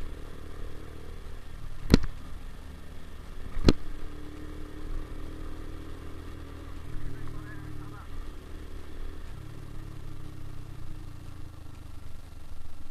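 Motorcycle engine running steadily, with two sharp clicks about two seconds and nearly four seconds in.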